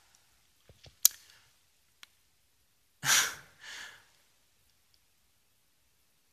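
A sharp click about a second in, then a man sighing heavily: one long breath out followed by a shorter, softer one.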